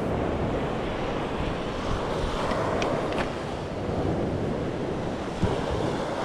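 Sea waves washing on a pebble shore, with wind rumbling on the microphone. There are a few faint clicks, and a short thump about five seconds in.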